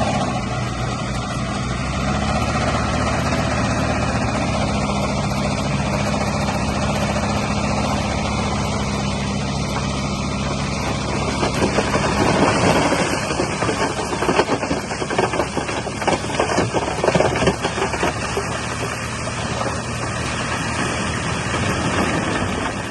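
Komatsu D31P bulldozer's diesel engine running steadily. About halfway through, several seconds of clattering and knocking set in as it pushes stone, then ease off to a steadier run.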